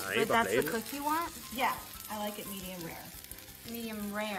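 Cereal-coated steak sizzling in butter in a frying pan.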